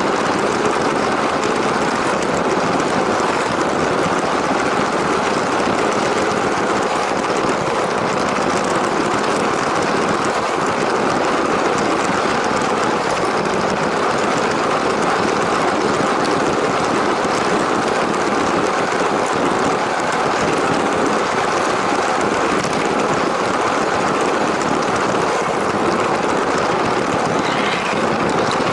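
LEGO train running along plastic track: a steady, unbroken rumble of its motor and wheels.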